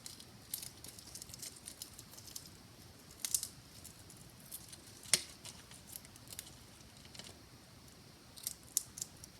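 Faint crackling and clicking of hard-boiled eggshell being peeled off by hand, with scattered small ticks and a few sharper clicks, the sharpest about five seconds in.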